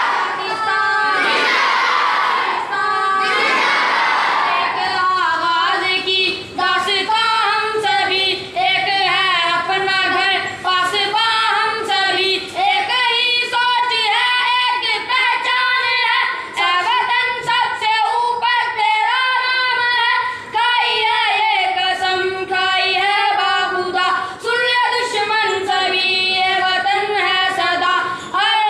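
Two schoolboys singing an Urdu tarana (anthem-style song) together.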